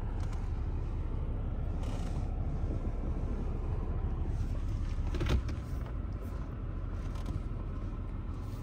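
Car driving, heard from inside the cabin: a steady low engine and road rumble. A single sharp knock comes about five seconds in, and the rumble is a little quieter after it.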